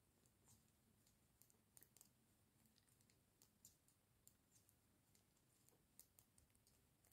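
Knitting needles clicking faintly and irregularly as stitches are worked, several small clicks a second.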